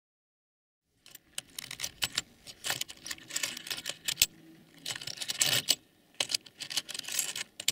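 Metal Dremel rotary-tool bits, drill bits and cutting discs clattering and rattling in a small plastic box as fingers stir through them, in irregular bursts of clicks starting about a second in.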